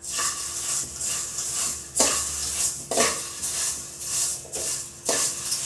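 Slotted steel ladle stirring and scraping dry vermicelli around a metal kadai as it roasts: a rustling, scratchy scrape of the brittle strands against the pan, in strokes about a second apart.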